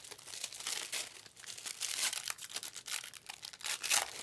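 Plastic foil wrappers of Panini Select trading-card packs crinkling in irregular rustles as they are handled, with a louder crinkle near the end.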